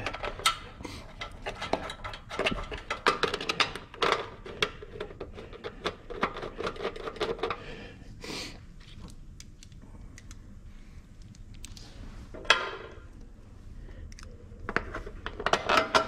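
Steel bolts and small metal parts clinking and rattling as they are picked up and the bolts are started into their holes by hand. There is a string of light clicks through the first half and a quieter stretch after it. About twelve seconds in comes a short rapid rattle, and more clicks follow near the end.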